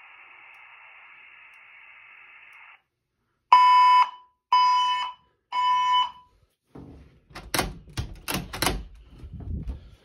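Fire alarm speaker-strobe sounding three steady beeps of one pitch in a row, the three-pulse (temporal-three) evacuation tone that plays between voice messages, after a faint steady hiss from the speaker. Then footsteps and handling knocks as the phone is carried down a carpeted hallway.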